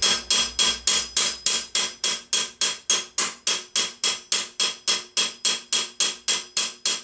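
Steady hand-hammer blows on a 1.6 mm sheet-metal armour plate held over a ball stake, about four a second, each blow ringing metallically. This is the metal around an unwanted rivet hole being drawn in to shrink the hole.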